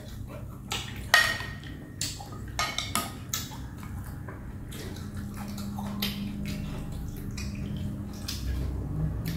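Chopsticks and a metal utensil clinking against a glass bowl of noodle soup: a few sharp clinks in the first few seconds, one with a short ring, then softer stirring and the wet sound of noodles being lifted from the broth.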